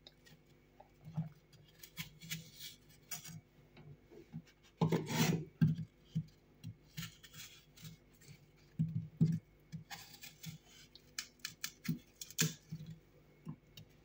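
Chef's knife cutting through a peeled apple and knocking on a wooden cutting board: short, irregular slicing scrapes and taps, loudest about five seconds in.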